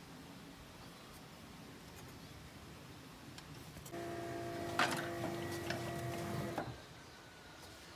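Compressed-air blow gun blowing for close to three seconds, starting about four seconds in: a steady whistling hiss that cuts off suddenly, with one sharp click partway through.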